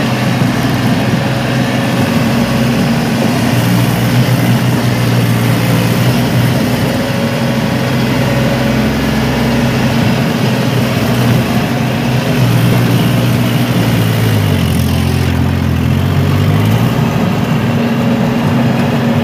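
Kubota L3608 tractor's diesel engine running steadily. About fifteen seconds in, its pitch drops for a couple of seconds and then climbs back.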